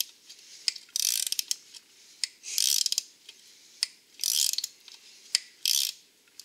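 Ratcheting wrench working a bolt loose on the axle-to-engine plate, giving four short bursts of rapid ratchet clicking, one on each back-stroke about every second and a half, with single sharp ticks between.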